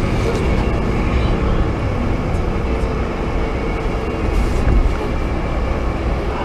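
Steady road and engine rumble heard inside the cabin of a moving Chrysler stretch limousine.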